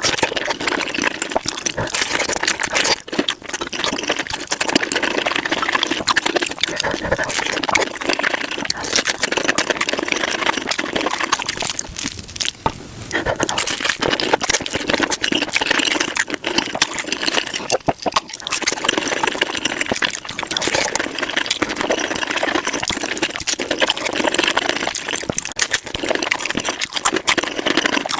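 Close-miked eating sounds played at five times speed: rapid crunching, chewing and wet mouth smacks of tacos being eaten, a dense unbroken stream of clicks with brief dips a few times.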